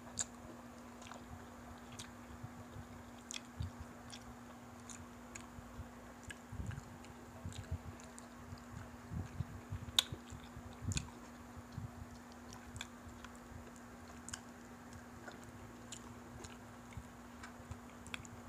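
Close-up eating sounds of fried chicken being chewed and picked apart by hand: irregular wet clicks and soft crunches, with a faint steady hum underneath.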